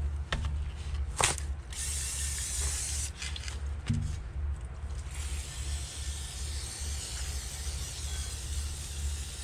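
Aerosol can of brake cleaner spraying down a new brake rotor: a short hissing burst about two seconds in, then a long continuous spray from about halfway through.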